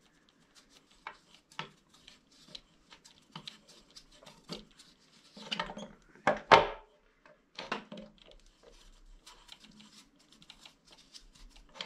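Long adjusting screw of a home-made knife-sharpening jig being wound by hand through its tight thermoplastic (polymorph) thread, with irregular small clicks and knocks of the screw and jig parts. A louder clunk comes about six and a half seconds in.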